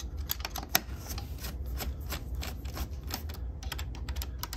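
Hex key turning in button-head screws as they are loosened: a run of small, irregular metal clicks, a few a second and one sharper about three-quarters of a second in, over a low steady hum.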